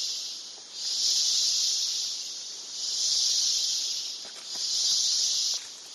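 Rainforest insect chorus: a loud, high buzzing that swells and fades in waves about every two seconds, three swells in all.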